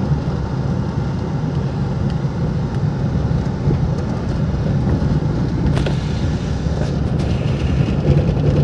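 Car interior while driving: the engine and road noise make a steady low rumble.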